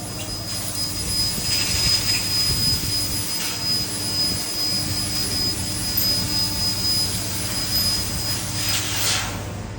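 CNC laser cutting machine running: a steady mechanical hiss and hum with a thin high whine that stops near the end.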